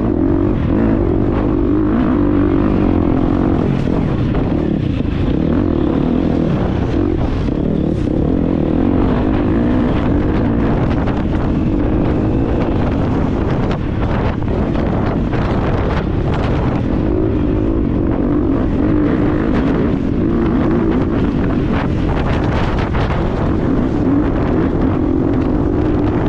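2022 GasGas EX250F's 250cc four-stroke single-cylinder engine running hard under way on rough dirt trail, its note wavering with the throttle. Wind buffets the microphone, and knocks from the bike over bumps and rocks come through.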